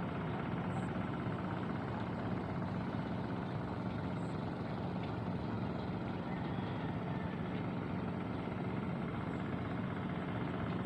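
An engine running steadily at an even idle.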